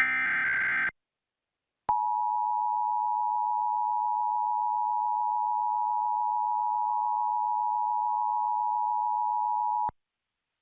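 The last of the Emergency Alert System's SAME header data bursts, a second-long warbling digital screech. After a second's pause comes the EAS two-tone attention signal (853 and 960 Hz sounded together), which holds steady for about eight seconds and then cuts off; it announces that the alert's voice message follows.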